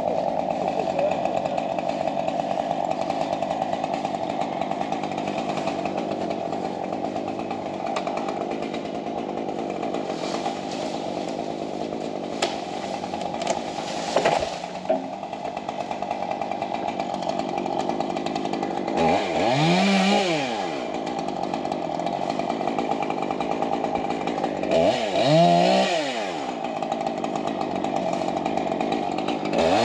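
Stihl MS 201 TC top-handle chainsaw running steadily at working speed, then revved up and back down three times, about two-thirds of the way through, again a few seconds later, and at the very end.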